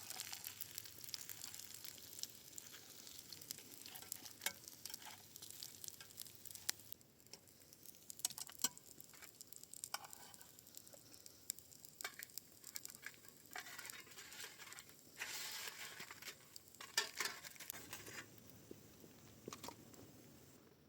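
Food frying in a pan: sizzling with many sharp crackles and pops, starting abruptly.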